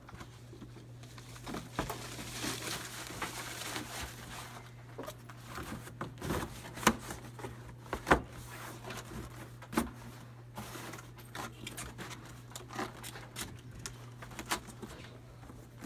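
Plastic bag rustling and cardboard boxes being shifted and set down on a desk, with several sharp knocks, the loudest about eight seconds in, over a steady low hum.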